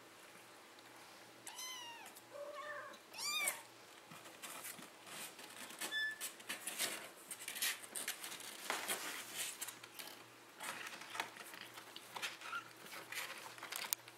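Kittens mewing: three or four short rising-and-falling mews close together about two seconds in. After that comes a run of quick scratches and rustles as the kittens scrabble and tussle on the bedding and against the cardboard box.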